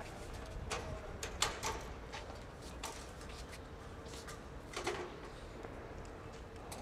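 Aluminium stepladder being handled and set against a wooden rack: a scatter of sharp clanks and knocks, the loudest about a second and a half in and again near five seconds, over a faint steady hum.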